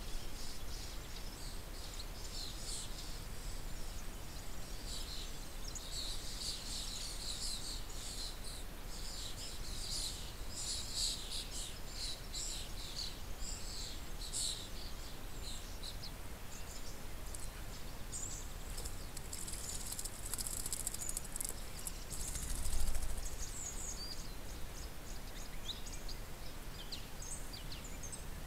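Garden birds chirping and calling in many short high notes, busiest from about six to fifteen seconds in and again around twenty, over a steady low background hiss; a brief low rumble comes about 23 seconds in.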